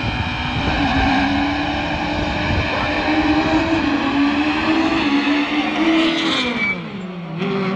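Rallycross cars on the start grid, engines held at high, steady revs. About six seconds in they head into the first corner and the engine note drops away.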